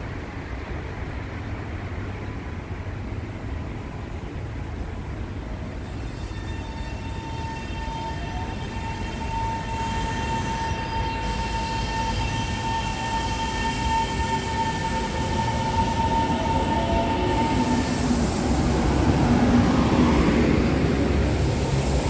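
Taiwan Railway EMU700-series electric commuter train arriving at the platform. A steady whine sets in about six seconds in, and the rumble of the wheels on the rails grows louder as the cars roll past and slow.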